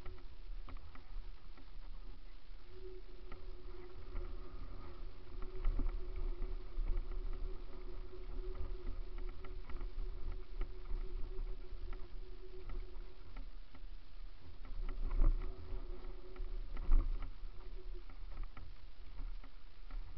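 Downhill mountain bike running fast over a rocky dirt trail, heard from an on-board camera: a constant deep rumble and rattle, with sharp knocks from bumps, the loudest about 15 and 17 seconds in. A steady whirring tone runs through much of the middle.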